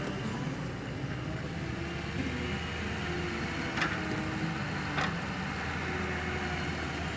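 Skid steer engine running steadily under work, with two sharp knocks a little over a second apart about halfway through.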